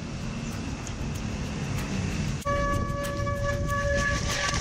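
Mountain bike rolling over a wet trail with a low rumble. After a break about halfway in, a steady high-pitched squeal with overtones sets in: the bike's wet disc brakes squealing under braking.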